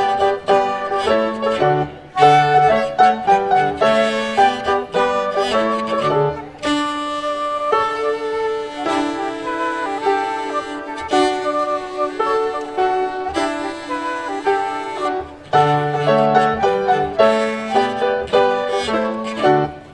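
Chamber ensemble of piano, flute, violin and cello playing Christmas music: short detached notes over a low cello line, giving way about seven seconds in to long held notes with the low part dropping out, then the short notes and cello line returning about fifteen seconds in.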